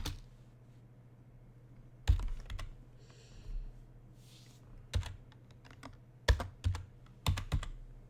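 Computer keyboard keystrokes: a few single sharp clacks spread out, sparse at first and coming closer together near the end, as a search is typed.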